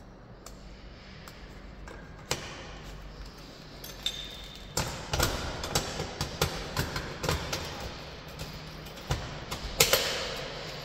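Clicks and knocks from a door-handle alarm and the fire door's lever handle being worked during a test, with the loudest knock near the end followed by a brief ring. A short high beep sounds about four seconds in.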